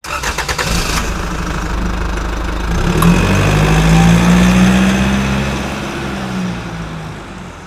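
Motorcycle engine sound effect revving up and holding a steady note, growing louder about three seconds in, then fading out near the end.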